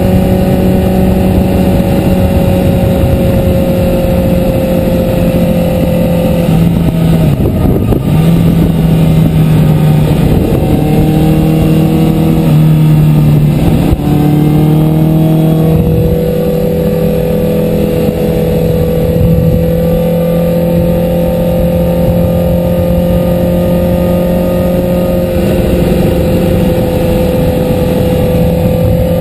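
Sport motorcycle's engine running at road speed, heard from on the bike with wind noise. The engine note drops and climbs through gear changes about a quarter to halfway through, then holds steady.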